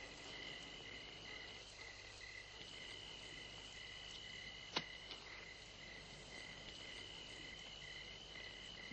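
Crickets chirping in a steady night chorus, with one sharp click about five seconds in.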